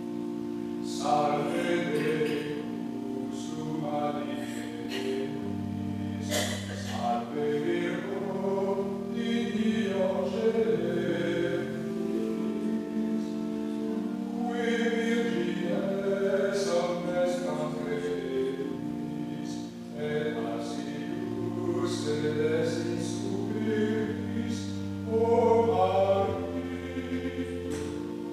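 Sacred choral music: a choir singing over long held chords.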